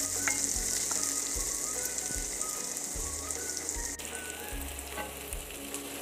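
Chopped onion, garlic and carrot sizzling as they fry in oil in a kadhai, being stirred with a wooden spatula. The sizzle drops a little about four seconds in.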